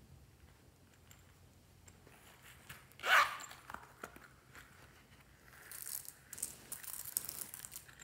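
Zipper of a fabric banana-shaped pouch pulled open with one short, loud rasp about three seconds in. Near the end come a rustle and a light patter as plastic sequins are shaken out of the pouch onto slime.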